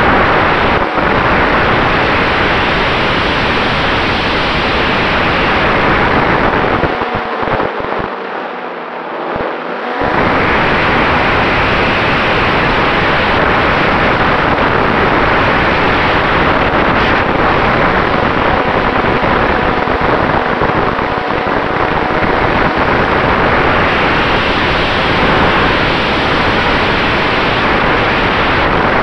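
Airflow rushing over an RC warbird's onboard camera in flight, with the steady whine of its electric brushless motor and propeller underneath. The rush thins out briefly about eight to ten seconds in, then returns.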